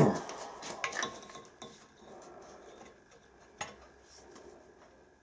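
Steel hand tools clanking as an adjustable spanner is fitted onto the hex on a seized stud in a cast-iron vice jaw. One loud ringing clank at the start, then a few lighter metallic clinks.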